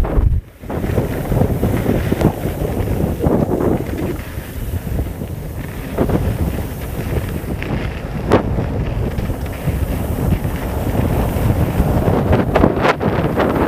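Wind buffeting the microphone: loud, continuous rumbling noise.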